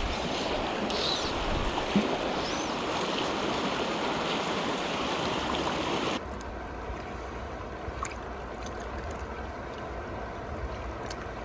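Steady rush of river current flowing over rocks, which drops to a quieter rush about six seconds in. There is a single brief knock about two seconds in.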